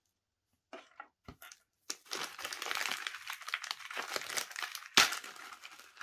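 Crinkling and rustling of the plastic packaging of aquarium biological filter media as the media is handled and put into a mesh media bag, continuous from about two seconds in, with a sharp click about five seconds in.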